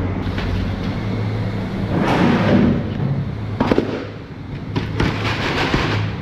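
Plastic fish crates being handled and shifted across the floor, with clattering and scraping and a few sharp knocks about halfway through, over a steady low machine hum.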